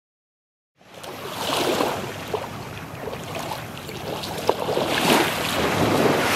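Surf washing onto a sandy beach, the noise swelling and easing with each wave. It cuts in abruptly under a second in, after dead silence, and a couple of sharp clicks stand out in it.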